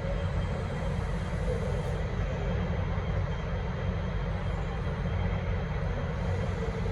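V/Line N class diesel locomotive running with a steady low rumble and no horn sounding.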